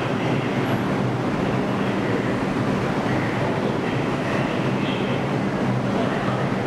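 New York City Subway 6 train approaching through the station, a steady rumble of wheels on rail and running gear.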